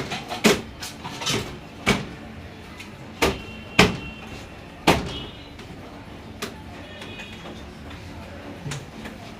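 A series of sharp knocks and clacks of hard objects being handled, about eight of them in the first six and a half seconds, the loudest near four seconds in. A few faint, short high tones sound between them.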